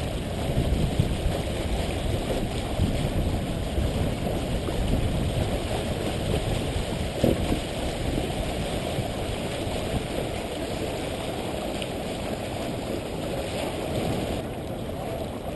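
Steady rush and splash of water along the hull of a small sailboat under way, with wind on the microphone.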